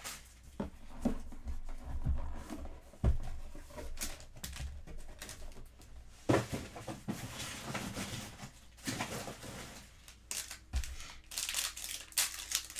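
Packaging tearing and crinkling while a cardboard Topps Gilded Collection box is handled and opened, with scattered light taps. Near the end comes the rustle of a stack of trading cards being handled.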